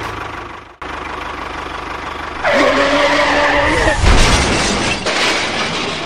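Vehicle sound effects for a toy tractor: engine running, then a drawn-out tyre-skid squeal about two and a half seconds in and a heavy crash thud about four seconds in as the tractor falls into a pit.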